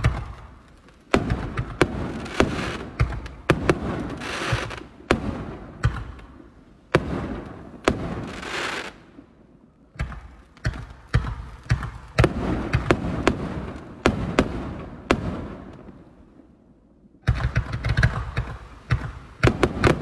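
Consumer firework cakes going off: a string of sharp launch shots and aerial bursts, with a trailing hiss after the bursts. It quietens briefly about three-quarters of the way in, then a fast volley of shots starts.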